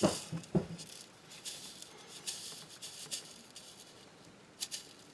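Ground cookie crumbs tipped into a bowl: faint patter and scattered light ticks, with two soft knocks in the first second.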